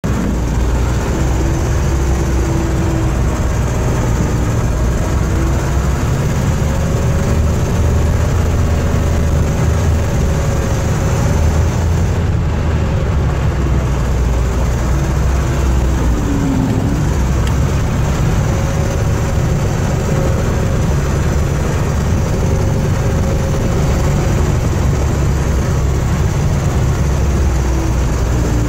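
Vintage snowcat's engine running steadily under load while climbing a snowy trail, heard from inside the cab: a constant low drone with a whine that wavers in pitch.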